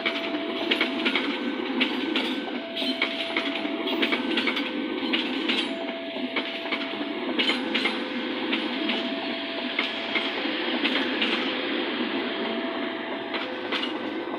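A train rolling past, its wheels clacking over the rail joints with a steady rumble, while a two-note tone sounds over it, the two notes taking turns about every second and a half.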